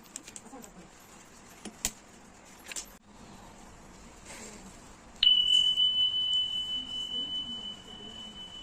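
A few light clicks, then about five seconds in a sudden high, pure ringing tone that slowly fades.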